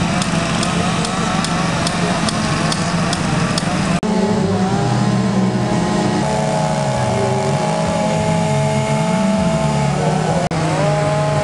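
Two-stroke chainsaw engines running at high revs, the pitch holding steady and then stepping up and down. The sound breaks off abruptly about four seconds in and again near the end.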